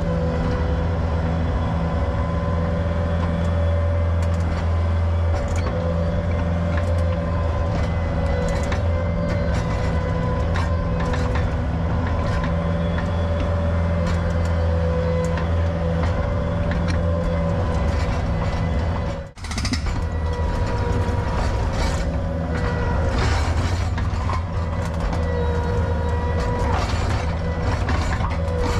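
Heavy equipment breaking up an asphalt driveway: a diesel engine running steadily under load with a wavering hydraulic whine and intermittent clanks and knocks of the machine working the pavement. A brief dropout comes about two-thirds of the way through.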